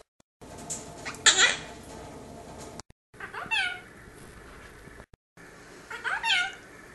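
Quaker parrot (monk parakeet) giving three short calls, each falling in pitch, over a steady background hiss of recording static.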